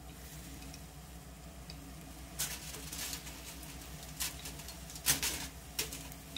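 Battered hornets deep-frying in oil in a small cast-iron skillet: a low sizzle, with sharp crackling spatters of oil from about two seconds in, a handful of them spread over the rest.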